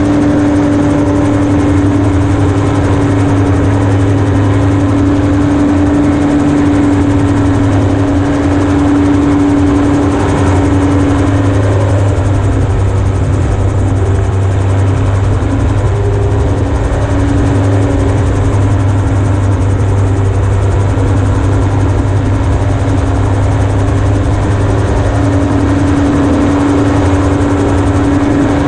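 Single-seat amphibious gyroplane's Yamaha RX1 four-cylinder four-stroke engine and pusher propeller running under power with a loud, steady drone, the pitch wavering briefly about halfway through.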